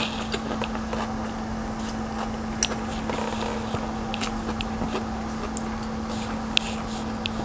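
Close-up chewing of stir-fried noodles, with scattered wet mouth clicks and smacks. A steady low hum runs underneath.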